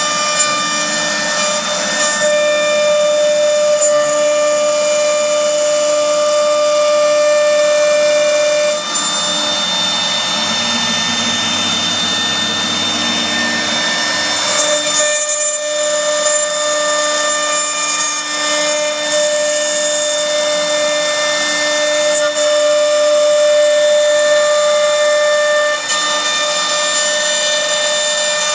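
CNC router spindle running and cutting, a steady high whine over a hiss of cutter noise. About a third of the way in the whine drops out and a lower hum takes over for several seconds, then the whine comes back.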